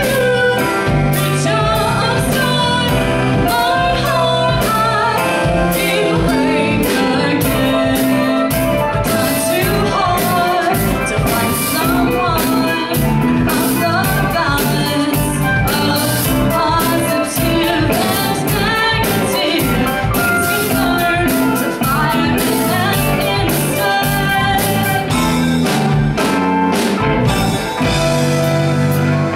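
Live band playing a song: a woman sings over electric guitar, bass guitar, keyboard and drum kit, with steady drum beats throughout.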